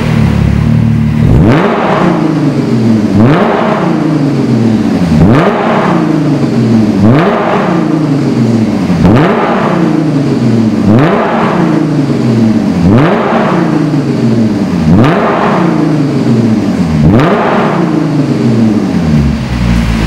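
Audi A7 with a Fi Exhaust valved cat-back system and quad tips, revved repeatedly while standing still: about ten quick blips, one every two seconds. Each rises sharply in pitch and falls back slowly toward idle.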